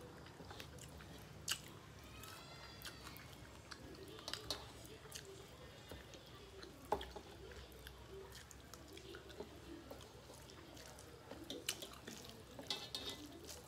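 Eating by hand at close range: chewing, with soft wet sounds of rice and curry being mixed by fingers on steel plates. Scattered light clicks and taps against the plates, one sharper click about seven seconds in.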